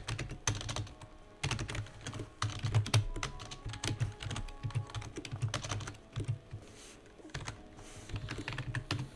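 Typing on a computer keyboard: a run of quick, irregular keystrokes with short pauses between bursts.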